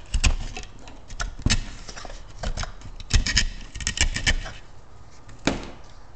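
Irregular clicks, taps and scraping from hands and a cutting tool working on a blown subwoofer's cone, spider and voice-coil assembly during teardown. The clicks come in a busy run, then ease off, with one louder knock near the end.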